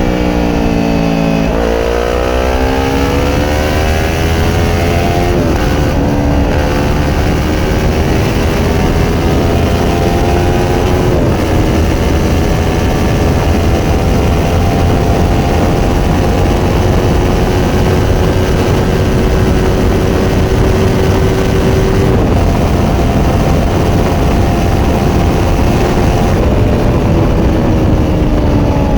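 Kawasaki Ninja 400 parallel-twin engine through a Yoshimura slip-on exhaust, under way on the highway. The engine note falls briefly at first, then rises hard under acceleration, with two sudden drops in pitch that mark upshifts about five and eleven seconds in. After that it settles into a steady cruise, dropping a little lower about three quarters of the way through.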